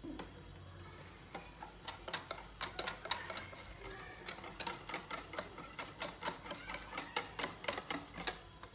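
Wire whisk beating a thick batter in a glass bowl, its wires ticking against the glass several times a second as the yeast is worked in. The strokes start slowly and become quick and regular after about a second and a half.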